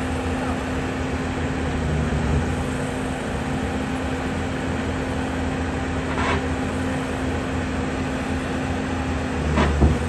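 Heavy diesel engine idling steadily: a low hum with a constant drone. A brief squeak comes about six seconds in, and a short louder surge with a squeal near the end.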